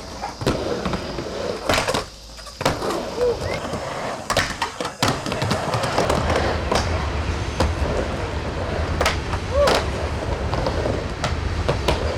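Skateboard wheels rolling on a wooden mini ramp, with repeated sharp clacks of the board and trucks hitting and grinding the coping and landing.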